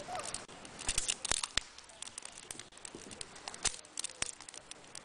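Dry driftwood cracking and snapping in sharp, irregular cracks, with a loud cluster about a second in.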